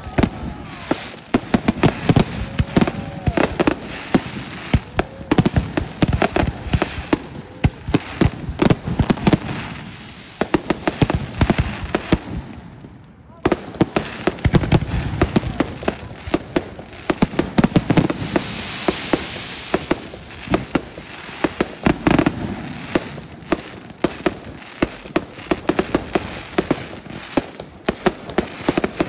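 Fireworks display: rapid, nearly continuous bangs and crackle from bursting aerial shells. There is a brief lull about twelve seconds in, then the barrage resumes.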